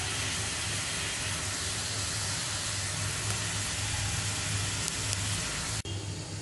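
Sliced onions sizzling steadily in hot oil in a heavy-bottomed kadai as they turn golden brown, with a low hum underneath. The sound cuts off abruptly near the end and a quieter sizzle follows.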